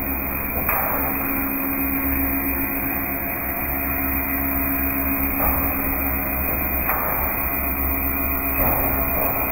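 Corrugated roofing sheet roll forming machine running, its motor and rollers giving a steady hum with a held tone, while a corrugated steel sheet feeds out through the rolls. A few brief scraping noises come through, about a second in, twice around the middle and twice near the end.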